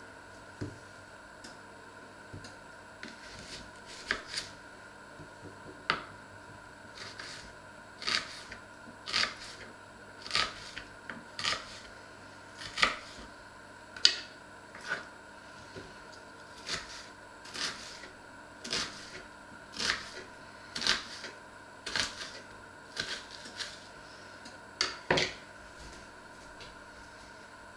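Kitchen knife cutting an onion on a wooden cutting board: a series of sharp knocks of the blade on the board, about one a second and unevenly spaced, beginning a few seconds in and stopping shortly before the end.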